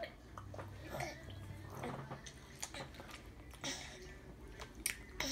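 A toddler's faint eating sounds: sipping from a cup, then chewing, with scattered small mouth clicks.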